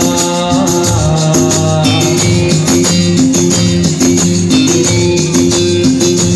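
Loud amplified music played through a stage PA sound system: a repeating bass line under a steady beat with percussion and melody.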